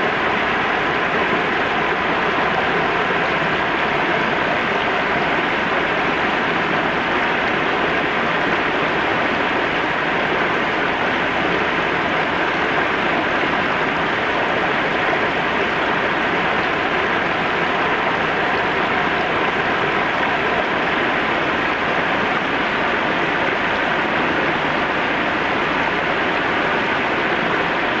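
River water spilling over a low weir and rushing through shallow rapids: a steady, even rush of flowing water.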